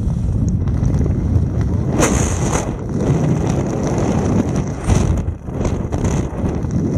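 Wind buffeting the camera microphone during a parachute canopy flight: a steady, loud low rumble, with louder rushing gusts about two seconds in and again near five seconds.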